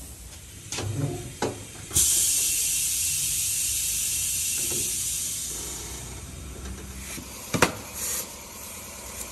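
Compressed air hissing at a tire-changing machine. The hiss starts sharply about two seconds in and slowly fades over about four seconds. Near the end comes a sharp clack, then a brief second hiss.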